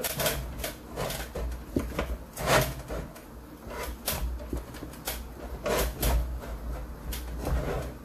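Rubber bead of a racing tire rubbing and scraping against the rim of an aluminium Keizer sprint wheel as it is forced over the rim by hand. It comes as a series of short, irregular rubs and knocks.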